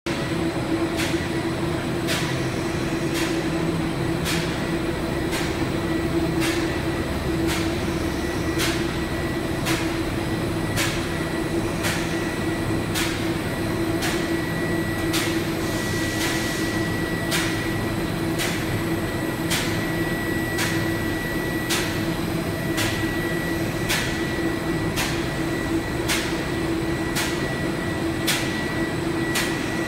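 Solventless silicone coating machine running: a steady mechanical hum with a faint high whine, and a sharp tick about once a second.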